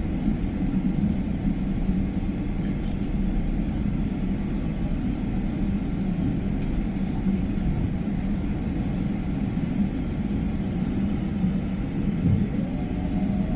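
Boeing 777-300's jet engines at full takeoff thrust: a steady, loud rumble. Near the end a higher tone rises and then holds.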